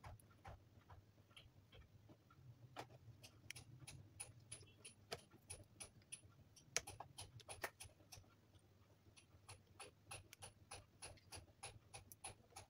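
Faint, irregular clicks and ticks of a small screwdriver driving tiny screws into the plastic head of an LED torch.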